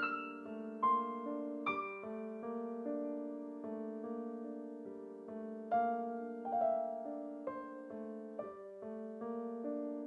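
Background piano music: a slow, gentle melody of struck notes over held chords.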